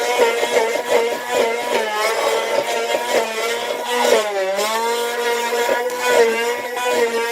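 Electric hand blender motor running with a steady whine, its pitch sagging briefly about four seconds in as the blade takes load, then picking back up. Irregular short knocks sound along with it.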